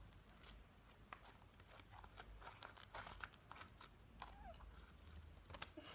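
Faint, scattered clicks and crackles of homemade shaving-foam slime being squished and stretched by hand, no longer sticky.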